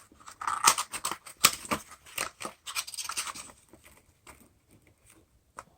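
A box of 9mm hollow-point cartridges being opened and handled: a quick run of clicks and rustles for about three and a half seconds, then a few scattered clicks.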